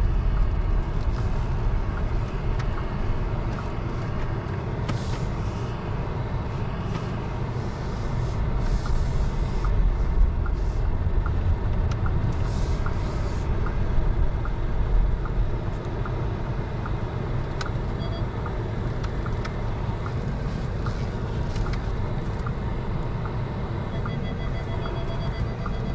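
In-cabin sound of a 2024 Bentley Flying Spur's twin-turbocharged 4.0-litre V8 on the move: a steady low rumble of engine and road, with a few brief swells of hiss.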